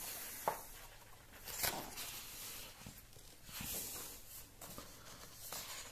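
Faint rustles and soft brushes of paper as the pages of a comic book album are turned, a few short sounds about a second apart.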